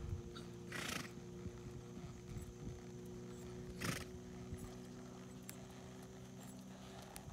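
Horse snorting twice, a short noisy blow about a second in and another near four seconds, with soft hoof falls on arena sand and a steady low hum beneath.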